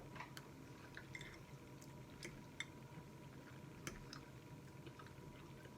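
Faint chewing of spaghetti and meatballs: a few scattered, soft wet mouth clicks over a quiet background.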